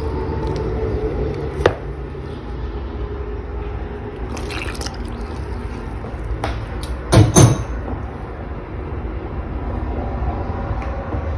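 A silicone spatula stirring and folding wet flour and water into a shaggy dough in a mixing bowl, with soft wet squelching and scraping. A sharp tap comes about a second and a half in, and a couple of louder knocks come about seven seconds in, over a steady low hum.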